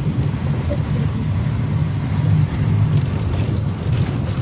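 Steady low rumble of a moving bus, engine and road noise heard from inside the passenger cabin.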